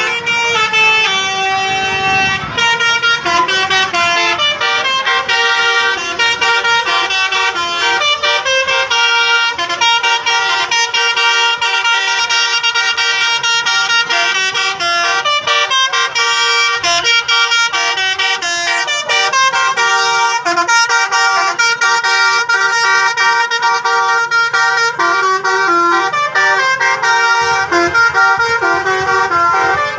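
Bus telolet horn: a set of musical air horns playing a fast melody, several tones at once, stepping from note to note every fraction of a second without a break.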